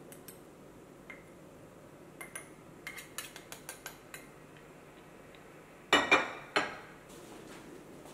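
A run of light clicks as a coffee scoop taps against the steel portafilter basket while ground coffee is spooned in, then three loud metallic clanks with brief ringing as the Gaggia Classic Pro's steel portafilter is knocked down onto the stone countertop.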